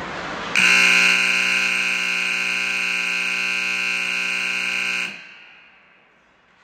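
Ice rink's period-end buzzer sounding one loud, steady tone for about four and a half seconds, starting about half a second in and then fading in the arena's echo. It marks the end of the second period.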